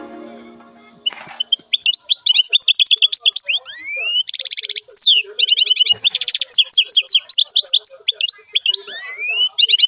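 Young lovebird chirping in quick trains of high, rapid chirps, mixed with a few rising calls.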